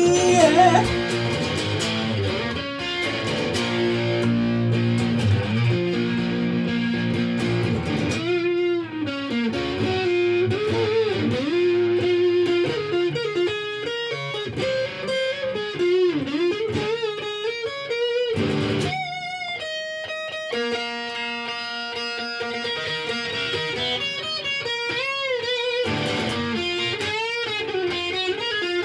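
Pink Telecaster-style electric guitar played solo: chords for the first several seconds, then a single-note lead line with bent notes and wide vibrato.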